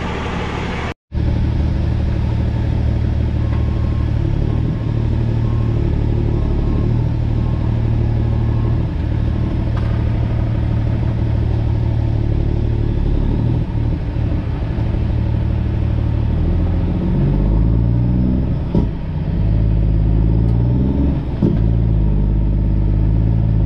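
Diesel engine of a heavy oilfield truck running with no mufflers, heard from inside the cab as a steady low rumble. The revs rise and fall a few times in the last third as the truck moves across the yard.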